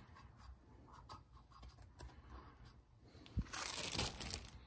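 Crinkling of parts packaging being handled, with a dull thump about three and a half seconds in and the loudest crinkling just after it.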